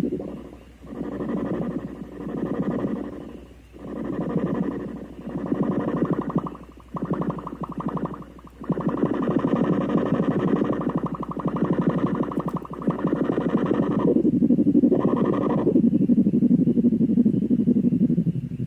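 Homemade pocket XOR drone synthesizer, powered by a reused cellphone battery, playing a dense drone as its knobs are turned. For the first half it swells and fades about every one and a half seconds, then it holds steady, with a short break about two-thirds of the way through.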